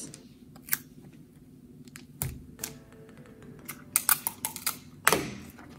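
Paper bag and adhesive tape being handled and pressed down: scattered light clicks and crinkles, with a short rustle near the end.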